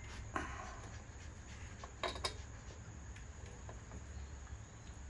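5 mm hex key tightening a bicycle crank arm's pinch bolts: a few faint metal clicks and scrapes, about half a second in and again around two seconds in, over a low steady hum.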